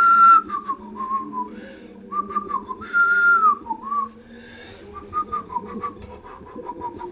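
A person whistling a slow tune: a run of held notes with short slides between them, pausing now and then.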